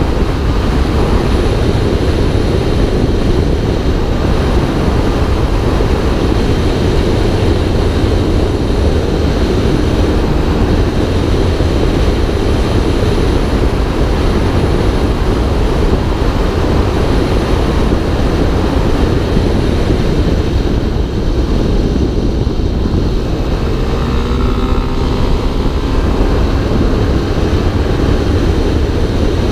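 Wind noise buffeting a helmet-mounted camera's microphone while a motorcycle rides along at road speed, with its engine running underneath. About 24 seconds in, a pitched engine note rises and falls for a couple of seconds.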